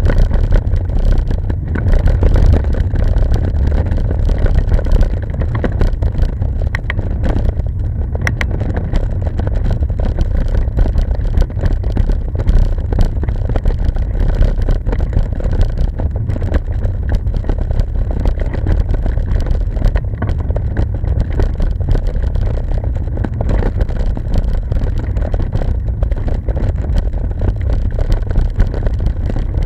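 Wind buffeting the microphone of a moving camera: a loud, steady low rumble.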